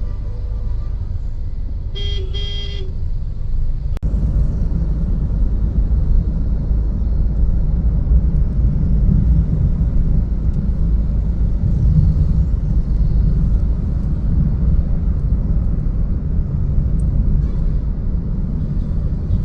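Steady low rumble of outdoor traffic noise, with a vehicle horn honking once for about a second near the start. The rumble grows louder about four seconds in.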